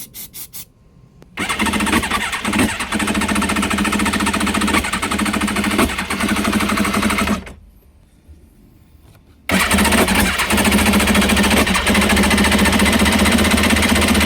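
Kawasaki Ultra 150 jet ski's two-stroke engine being cranked by its electric starter in two attempts of about six seconds each, with a short pause between them. A few quick clicks come just before the first attempt. The engine spins but does not fire; the stator has just been replaced.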